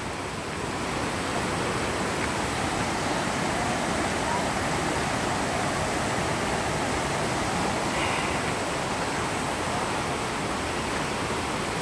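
Mountain creek rushing over boulders: a steady, even rush of white water, a little louder about a second in.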